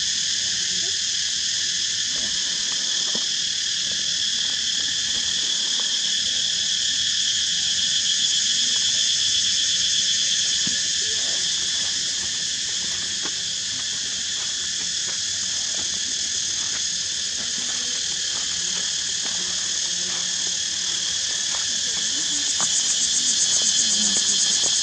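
Steady chorus of insects: an even, high-pitched shrill drone that goes on without a break and swells a little near the end, over faint scattered clicks.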